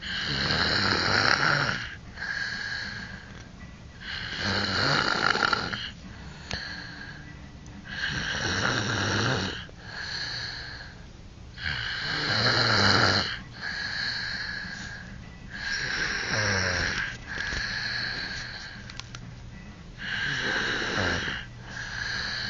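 A person snoring heavily, about six loud snores roughly every four seconds, each followed by a shorter, quieter snore.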